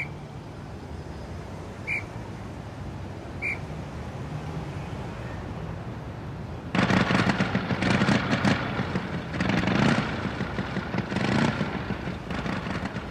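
Three short high toots in the first few seconds. About seven seconds in, a loud, rough motorcycle engine starts up and runs unevenly, rising and falling.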